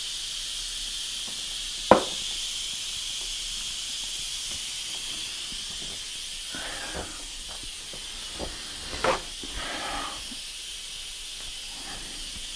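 Instant Pot electric pressure cooker venting steam through its pressure-release valve in a steady hiss: the pot is still under pressure, its float valve not yet dropped. A sharp click about two seconds in and a few light knocks later on.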